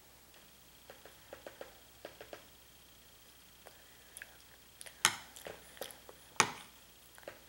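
A toddler's fork tapping and scraping in a bowl: a scatter of light clicks, then two sharper clinks about a second and a half apart in the second half.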